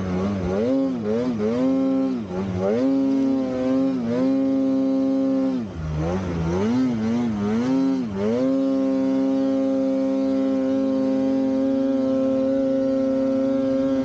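Polaris Khaos 9R snowmobile's two-stroke engine revving up and down in quick throttle blips, then held at steady high revs for the last five seconds or so.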